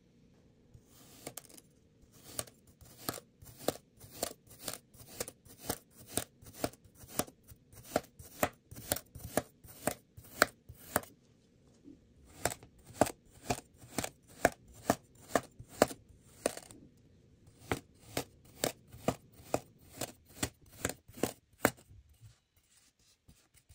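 Large kitchen knife slicing and chopping through kinetic sand, each cut a sharp click, about two a second. The cutting pauses briefly twice and stops shortly before the end.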